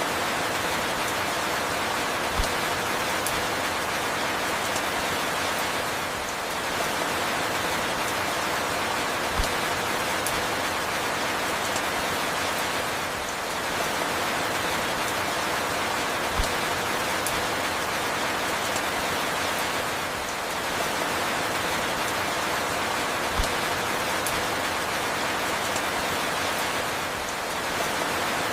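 Steady falling rain, an even hiss with no music. A slight dip in level and a single low tap recur about every seven seconds, as in a looped recording.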